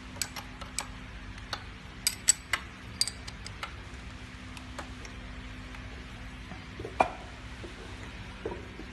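Metal tooling and hand tools clinking and tapping against the steel of a tablet press during fitting of its dies and punches. A scatter of sharp clicks comes in the first four seconds, and one louder knock about seven seconds in, over a faint steady hum.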